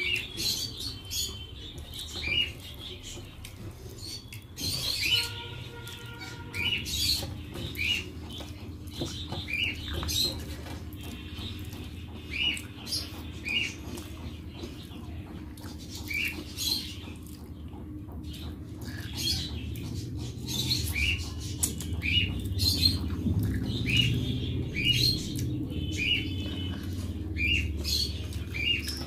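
Eating by hand from a metal plate: fingers scraping rice across the plate, chewing and lip smacks, with short high chirps repeating about once or twice a second.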